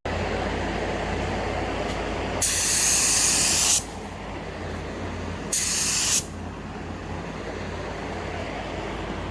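Two bursts of compressed-air hiss from an air tool, the first about a second and a half long starting about two and a half seconds in, the second shorter, about five and a half seconds in, over a steady background hum.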